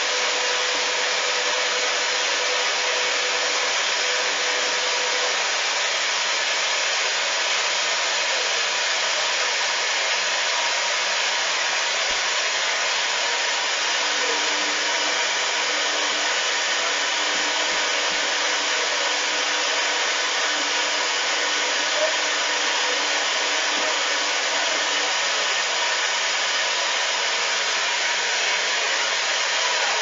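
Hoover front-loading washing machine running on a 30 °C wash: a steady, even whirring hiss that holds at one level throughout, with a faint hum that shifts slightly in pitch partway through.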